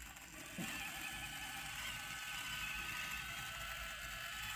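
Axial SCX24 Deadbolt 1/24-scale RC crawler's small electric motor and gears whirring steadily as it crawls up a steep slope, starting about half a second in.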